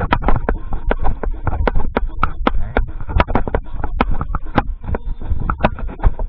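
Sharp drumstick taps and clicks on a set of marching tenor drums (quads), several a second at an uneven pace, over a low rumble.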